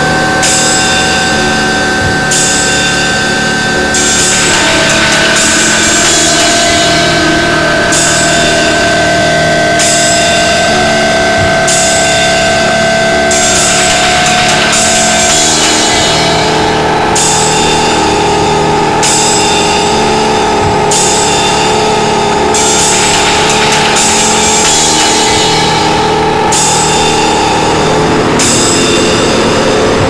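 Loud drone and noise music: several held tones that step to new pitches a few times, under a dense wall of noise whose high hiss cuts in and out in blocks every second or two.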